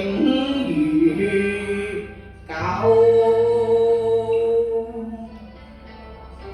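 Music: a slow melody in Chinese song style, with a long held note starting about two and a half seconds in and fading away after about five seconds.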